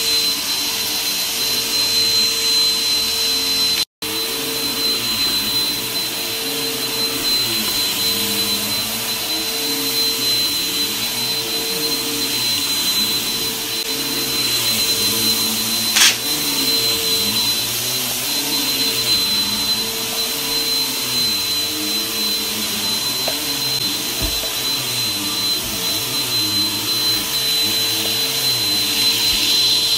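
Bagless upright vacuum cleaner running on a shag rug, a steady motor whine over a low hum that wavers as it is worked back and forth. The sound cuts out for an instant about four seconds in, and there is a single sharp click about halfway through.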